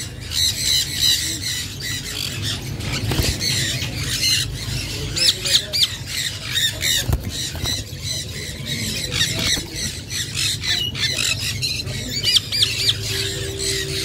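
Flock of Indian ringneck parakeets squawking and screeching in short, sharp, repeated calls over a steady low hum.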